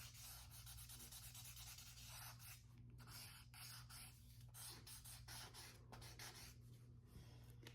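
Faint scratching of a drawing tool on paper in quick, irregular strokes, over a low steady hum.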